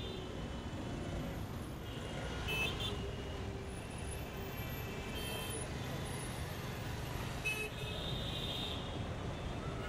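Congested city traffic of auto-rickshaws, cars and buses: a steady rumble of engines, with short horn toots a few times and a longer horn blast about eight seconds in.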